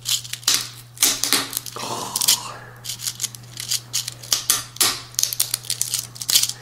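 Utility-knife blade sawing back and forth through the dry, hard keratin segments of a rattlesnake's rattle: a quick, irregular run of crisp scraping clicks.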